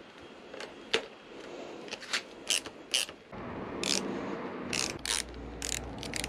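Hand tool tightening the fly screen's mounting bolts: a run of irregular sharp metallic clicks, a few tenths of a second apart, with steadier handling rustle from about three seconds in.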